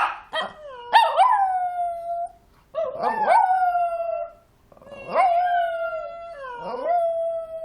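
A dog gives a sharp yip, then howls three times in long, drawn-out notes that slide down and then hold steady. It is howling in reply to the sound of a cat.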